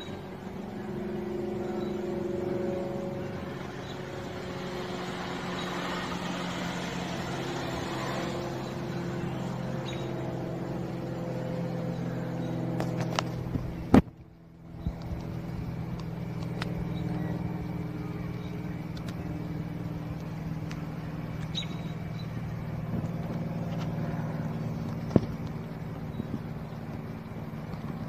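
Cirrus SR22 with a four-bladed propeller flying high overhead: a steady drone of the propeller and six-cylinder engine, several low tones layered together. About fourteen seconds in, a sharp click and a brief dropout break the sound.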